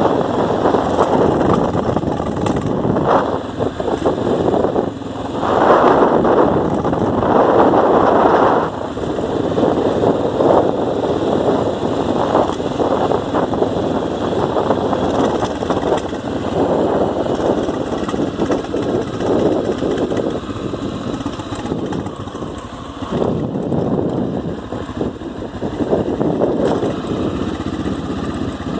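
Dirt-style motorcycle engine running while under way, its loudness rising and falling, with a louder stretch about six seconds in.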